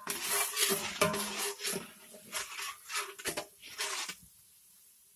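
A long metal ladle scraping and clanking against the inside of a large aluminium cooking pot while potatoes are stirred in oil, the pot ringing after some strokes. The strokes come every half second or so and stop about four seconds in.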